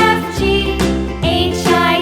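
Upbeat children's background music with a steady beat and bright pitched notes.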